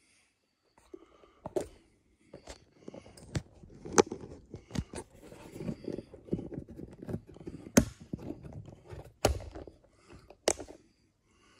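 Handling noise from a camera being repositioned: irregular knocks and sharp clicks, with rubbing and scraping in between.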